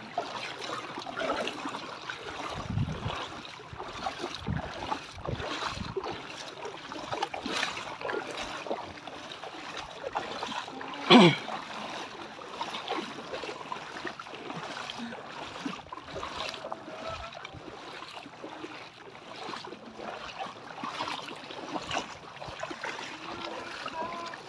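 Footsteps wading through shallow seawater, with irregular splashing and sloshing at each step. One much louder splash or knock stands out about eleven seconds in.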